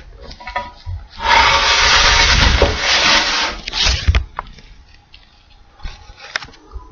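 Camera handling noise as the camera is picked up and carried: knocks and clicks, then about three seconds of loud rubbing against the microphone that stops abruptly, followed by a few more small knocks.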